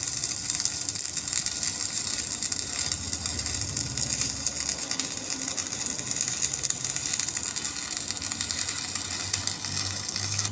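Stick (shielded metal arc) welding: the electrode's arc on a steel plate crackling and sputtering steadily with a dense frying hiss, cutting off at the very end as the arc is broken.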